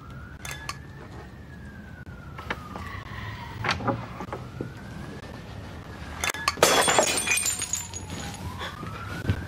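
An emergency-vehicle siren wailing slowly up and down, with light clinks of a glass and bottle. A loud crash about six and a half seconds in.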